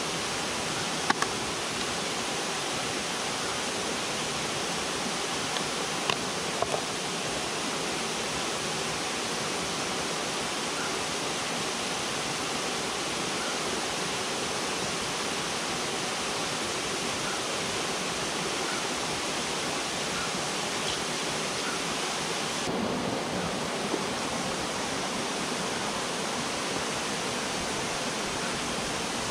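A steady rush of flowing river water, with a few faint clicks in the first seven seconds.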